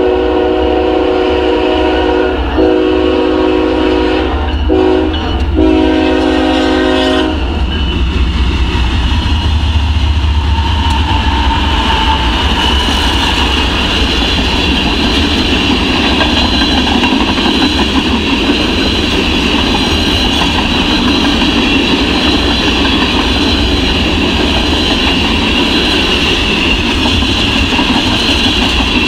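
Freight train led by a BNSF GE diesel locomotive sounding its multi-note air horn at a grade crossing: a long blast, a short one and a final long one, ending about seven seconds in. Then the train's tank cars roll past at speed with a steady rumble and the clickety-clack of wheels over the rails.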